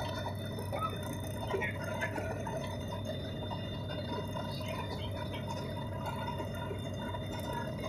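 Steady airliner cabin noise in flight: an even drone of the engines and air flow with a few steady high tones.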